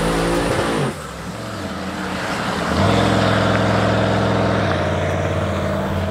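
Twin-turbo Chevrolet Silverado at full throttle on a drag-strip pass, engine note and a high turbo whine running, cutting off sharply about a second in as the throttle closes. From about three seconds in a loud, steady engine drone takes over.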